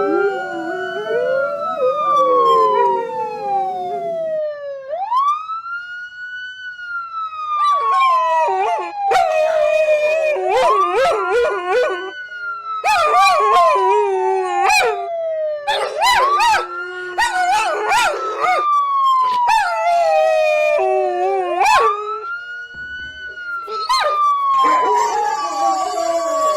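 Emergency-vehicle wail siren rising quickly and falling slowly, cycling about every five and a half seconds, with a pack of canines howling along to it in several long stretches.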